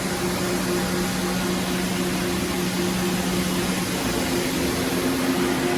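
Steady machine hum with a constant hiss and two low, steady tones, typical of a powered-up CNC lathe's motors and pumps running.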